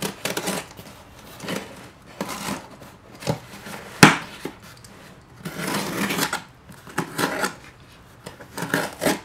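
Utility knife slitting reinforced packing tape along the seam of a cardboard box: irregular scratchy cutting strokes and cardboard handling, with one sharp click about four seconds in that is the loudest sound.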